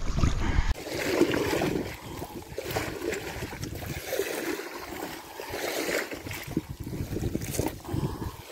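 Kayak paddle strokes splashing and sloshing through shallow, muddy water at an irregular pace. A low rumble stops less than a second in.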